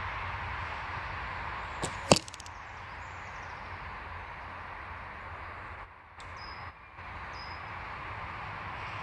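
An arrow shot from a Samick SHT 40-lb takedown recurve bow hits a foam target boss about two seconds in with one sharp, loud smack and a brief rattle. A fainter snap of the bowstring comes a moment before the impact.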